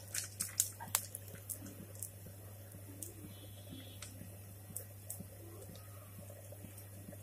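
Quiet background with a steady low hum and scattered light clicks, most of them in the first two seconds.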